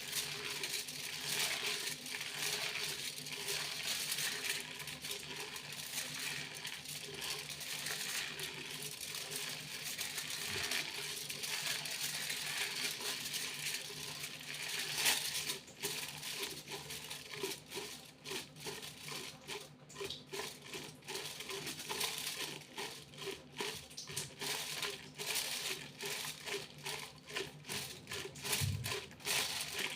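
Aluminium foil being crinkled and crumpled, with a metallic jingle. It starts as a continuous rustle and, from about halfway through, breaks into quick separate crackles.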